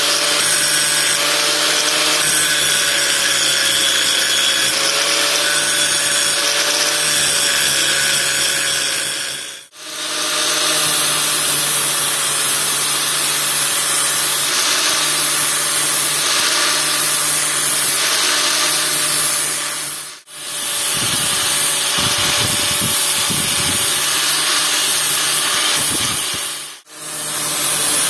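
Handheld power tool running steadily under load on the work. It drops out briefly three times and starts up again.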